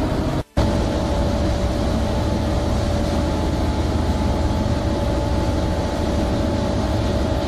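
A fishing vessel's engine and machinery running steadily, with a constant whine over the low drone; the sound drops out briefly about half a second in.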